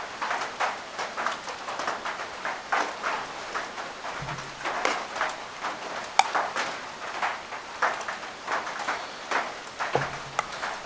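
Someone chewing crunchy granola close to the microphone: an uneven run of crackly crunches, about two to three a second.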